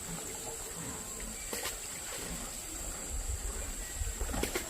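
A steady high-pitched insect buzz runs throughout, with two sharp clicks, about a second and a half in and again near the end. A low rumble comes in during the second half.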